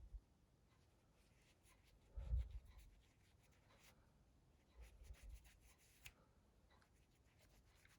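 Faint rubbing and scratchy ticks of a wet wipe being worked over the small plastic and glass parts of a mobile phone to clear dust. There is a soft thump about two seconds in and a couple more around five seconds, as the parts are handled against the bench.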